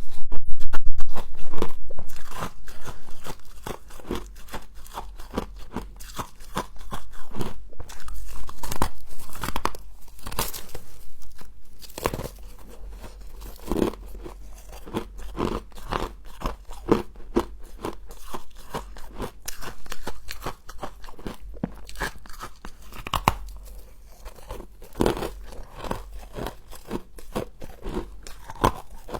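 Mouth crunching and chewing humidifier frost, a dense run of loud bites in the first two seconds followed by a long, irregular series of smaller crunches.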